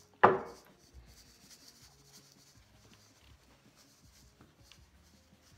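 A single sharp knock just after the start, the loudest sound. Then a faint scratchy rustle with small ticks as ground walnut shell filler works down through a plastic funnel into a fabric pin cushion.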